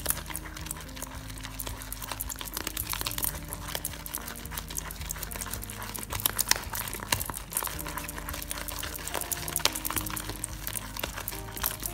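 Foamy slime mixed with body-wash lather squishing and crackling in a glass bowl as it is stirred by hand and a spatula, a dense run of small wet pops and clicks. Soft background music plays underneath.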